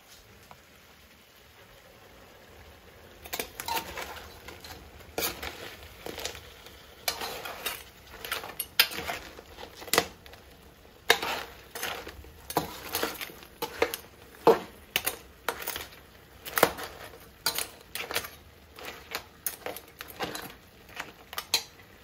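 A metal serving spoon knocking and scraping against a large aluminium pan while stirring crab curry, the crab shells clattering in the pot. It starts about three seconds in and goes on in irregular strokes, some loud knocks among softer scrapes.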